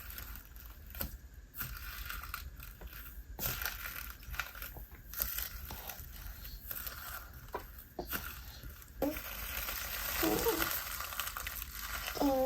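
Hands squishing and pressing a crunchy slime mixed with bingsu beads: scattered crackles and pops, turning into a denser, continuous crinkling in the last few seconds.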